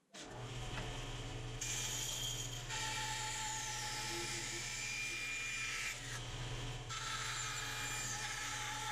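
Bandsaw switching on and running with a steady hum, its blade cutting through the wooden box blank to slice a side off. The cutting noise comes in about a second and a half in, stops briefly around six seconds and resumes about a second later.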